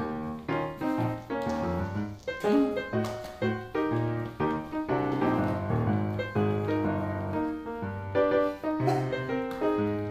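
Background music: a keyboard-led tune of quickly changing notes over a steady bass line.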